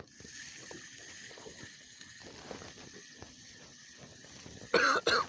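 Faint steady background hiss with a few light ticks, then near the end a man loudly clears his throat.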